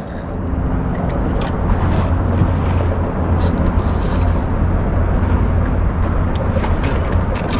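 Fishing reel being cranked during a fish fight, with its drag giving short clicks and a brief rasp about three and a half seconds in, over a steady low rumble.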